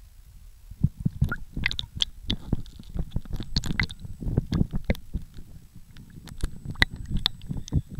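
Seawater sloshing and splashing around a camera held half-submerged at the surface, with irregular wet pops, gurgles and low thumps starting about a second in.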